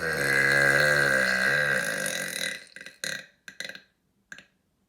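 A man's long, deliberate burp, its pitch wavering, ending about two and a half seconds in. A few short clicks follow.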